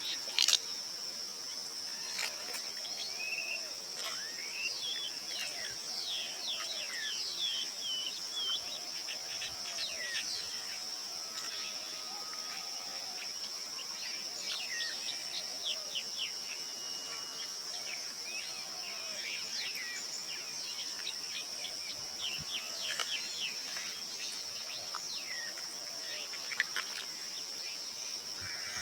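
Tropical forest ambience: a steady high insect drone, with many short bird chirps scattered over it and a lower call repeating about once a second.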